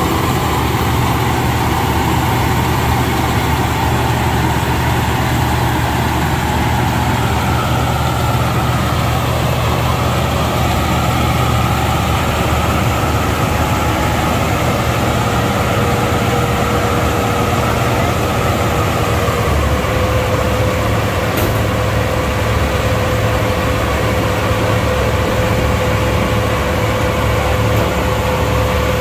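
Zoomlion 100E tracked combine harvester's diesel engine running steadily and loudly as the machine drives on its tracks. A steady higher whine comes in about halfway through.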